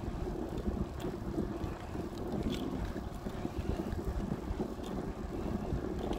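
Wind buffeting the microphone of a camera carried along at walking or riding pace: a steady, low, uneven rumble with a few faint ticks.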